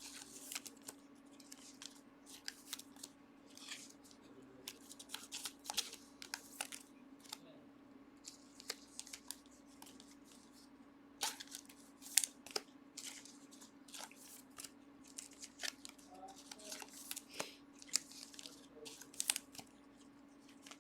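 Trading cards and pack wrappers being handled: irregular rustling, sliding and light taps, with a low steady hum underneath.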